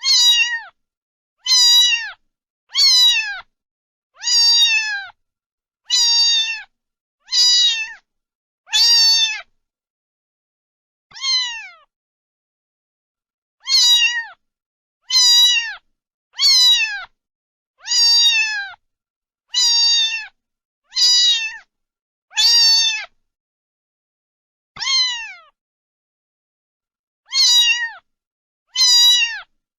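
A cat meowing over and over, about eighteen meows each under a second long and falling in pitch, roughly one every second and a half with a few longer pauses.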